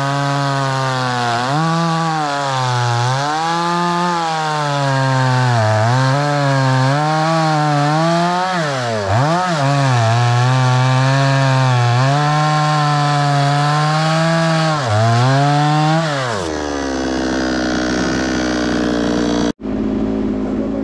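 Two-stroke chainsaw cutting through a tree, its engine pitch rising and falling again and again as the chain bites into the wood. About 16 seconds in the revs fall away to a lower, steady run, and near the end the sound breaks off abruptly.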